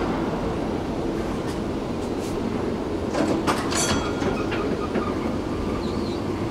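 Tram running along its track: a steady rumble of wheels on rails, with a cluster of sharp clicks and knocks about three to four seconds in and a brief faint squeak near the end.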